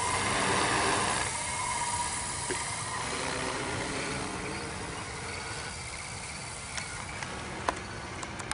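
Large multirotor drone's motors and propellers humming steadily in flight, slowly growing fainter. A few sharp clicks late on, the loudest about three-quarters through.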